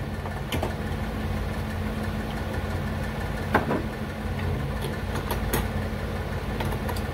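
A steady low mechanical hum, with a few light plastic clicks and knocks as a battery is pushed into a tight compartment.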